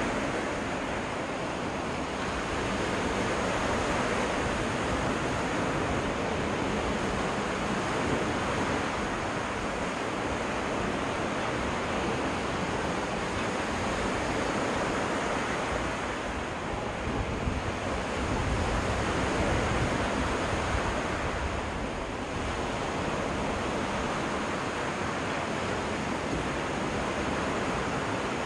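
Waves washing onto a freshwater lake beach: a steady hiss of surf that swells and eases every few seconds, with some wind rumbling on the microphone.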